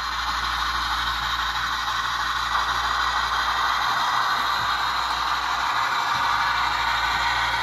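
Steady hiss of steam from a model Shay locomotive's Tsunami2 sound decoder, played through the model's small speaker.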